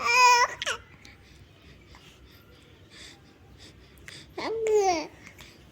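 A baby's high-pitched vocal sounds: a short, wavering squeal right at the start, and a coo that rises and falls about four and a half seconds in.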